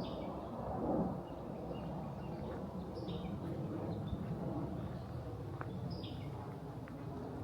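A songbird gives a short, high, falling call about every three seconds, three times. Beneath it runs a steady low outdoor rumble, with a brief louder low rush about a second in.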